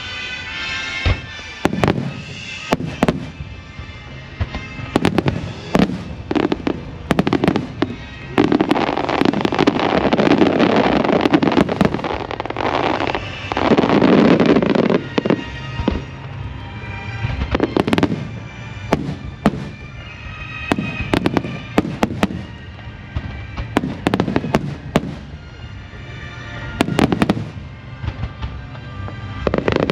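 Aerial fireworks going off: a run of separate sharp bangs, with a dense, loud barrage of overlapping bursts from about eight to fifteen seconds in. Music plays underneath.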